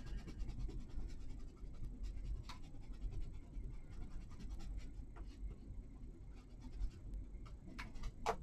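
Round ink blending brush rubbed lightly over a plastic stencil on paper: a soft, fast, continuous scratching of the bristles. A single sharp tap near the end.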